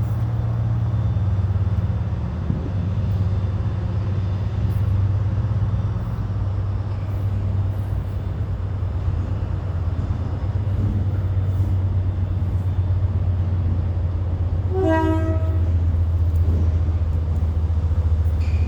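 A train running with a steady low hum, and a short toot of its horn about fifteen seconds in.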